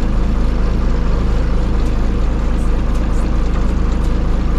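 Bus diesel engine running at a steady low speed, heard from inside the driver's cabin as an even, low rumble.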